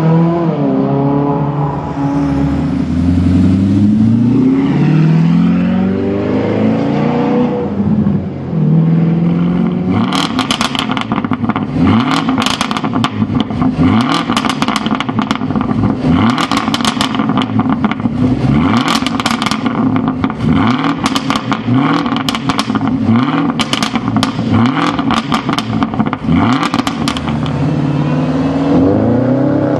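A sports car engine revving up and down as it accelerates. Then, from about ten seconds in, a Jaguar F-Type R's supercharged V8 is blipped over and over at a standstill, one or two times a second, each rev falling away with a sharp exhaust pop or crackle. Near the end another engine revs up again.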